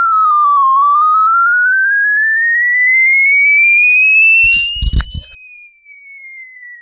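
A smartphone speaker-cleaner app playing a pure sweeping tone through the phone's earpiece speaker, to shake dust out of it and clean the speaker. The loud tone dips briefly, then rises steadily in pitch. About five seconds in there are a few knocks, and the tone drops much quieter while gliding slowly down.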